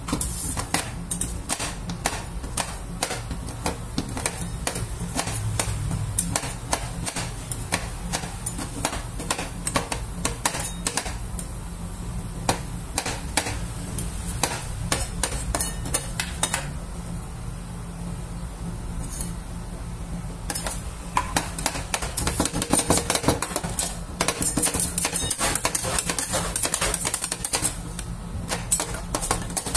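Two steel spatulas chopping chocolate bars on the frozen steel plate of a rolled ice cream machine: rapid, irregular clicking and tapping of metal on metal. It grows denser and louder about two-thirds of the way through, over a steady low hum.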